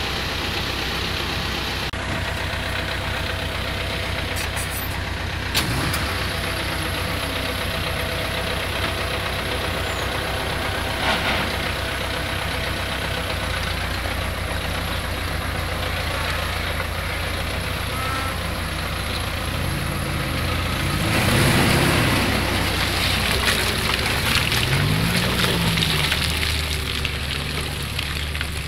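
A vehicle engine running steadily, its revs rising and falling twice in the second half, when it gets louder.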